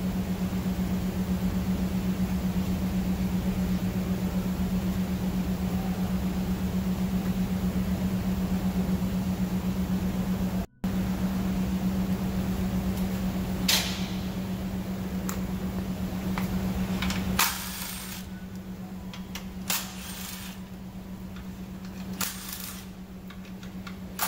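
Steady low hum of a small motor running, which drops in level about two-thirds of the way through. A few sharp clicks and knocks over the second half.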